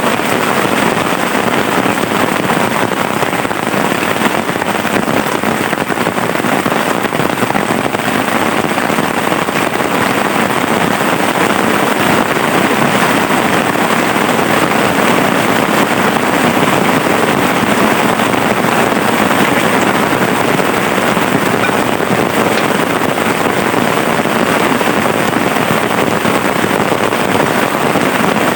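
Heavy rain falling steadily, a loud, even hiss with no breaks.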